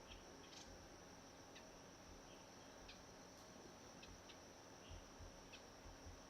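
Faint ambience at a forest pool: a steady high-pitched insect drone, with a handful of brief faint chirps scattered through it.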